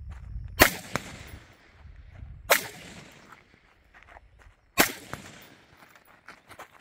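Three single shots from an HS Produkt VHS-2 5.56 mm bullpup rifle, about two seconds apart, each with a short echo trailing off.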